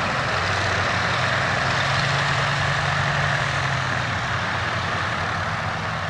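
Hawker Nimrod biplane's Rolls-Royce Kestrel V12 engine running throttled back during the landing roll-out: a steady low drone with a rushing hiss that eases slightly as the aircraft moves away.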